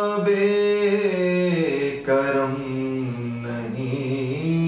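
A man singing a slow devotional poem, drawing out the words "bab-e-karam" in long held notes that glide from one pitch to the next.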